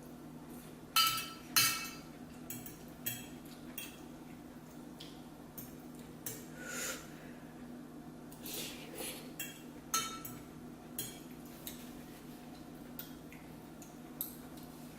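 A utensil clinking and scraping against a bowl while eating. Two sharp clinks about a second in, then scattered lighter taps and clinks, over a steady low hum.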